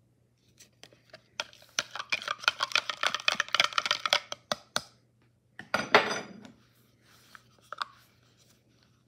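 A utensil stirring and clinking rapidly against the inside of a cup, mixing hand-feeding formula; a louder clatter about six seconds in, then a few light clicks.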